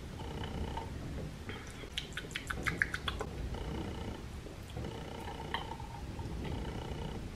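A quick run of small wet mouth clicks and lip smacks, a person tasting a sip of fizzy grape drink, about two seconds in. Under it, a faint purring-like hum that comes and goes about every second and a half.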